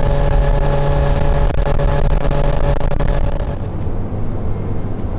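Mercury outboard motor running steadily at speed, a steady engine note over the rush of wind and water as the boat moves. About three and a half seconds in it cuts to a steadier, lower outdoor rumble.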